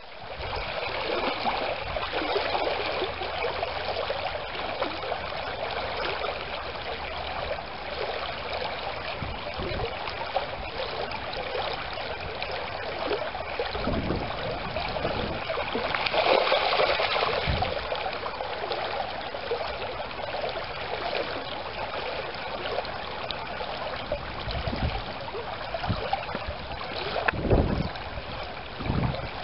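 Shallow stream running over a riffle, a steady babble of water, with a few short low thumps now and then.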